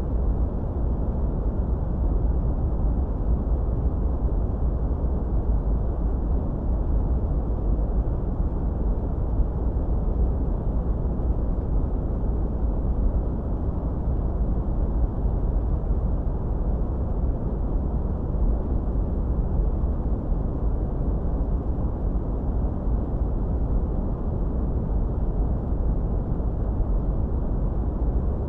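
Generated noise track played for tinnitus masking: an even, unbroken rushing noise, deep and dull, with most of its weight in the bass and little above the midrange.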